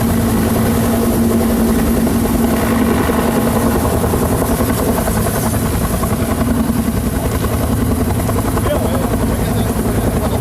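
Helicopter rotor chopping loudly with a fast, even beat, close by.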